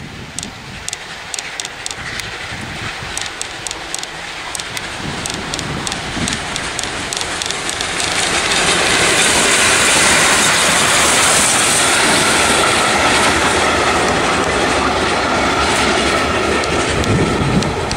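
Steam-hauled train of vintage passenger coaches passing close by: regular clicking of wheels over the rail joints at first, then a louder, steady rush of the locomotive and coaches going past from about eight seconds in, with a faint wheel squeal.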